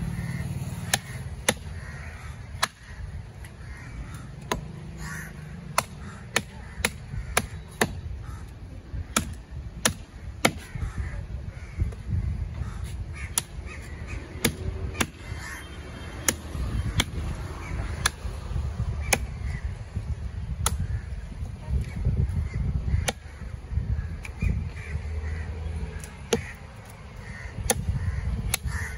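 Heavy chopping knife striking through a giant trevally's head on a wooden chopping block: sharp, irregular strikes, about one or two a second.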